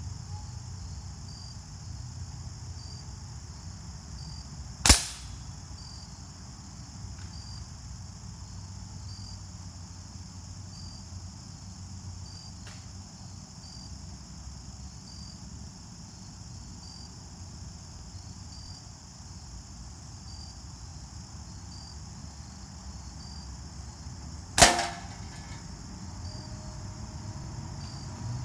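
Two gunshots about twenty seconds apart, each a single sharp crack with a short tail, over a steady chorus of crickets.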